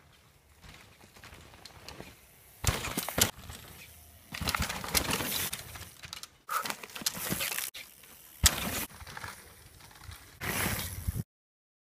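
Mountain bike riding over a dirt trail and jumps: tyres rushing and crunching on dirt with sharp thuds as the bike lands, in several short bursts that start and stop abruptly between clips. The loudest thud comes a little after the middle.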